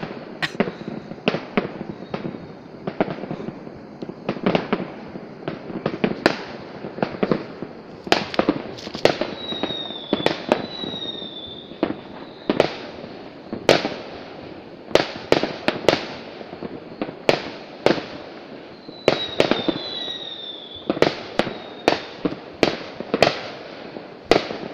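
Aerial fireworks going off in an irregular string of sharp bangs, at times several a second. Twice a short falling high whistle sounds among them.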